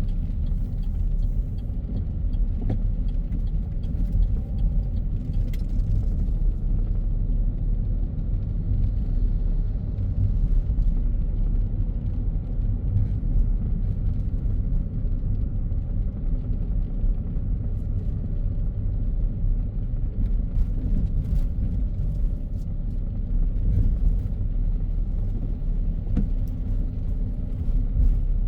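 Car driving on a road: a steady low rumble of road and engine noise, with scattered faint clicks.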